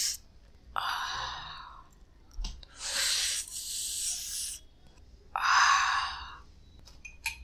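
A person breathing slowly and deeply, two full breaths in and out, each out-breath like a sigh, with a couple of small mouth clicks near the end.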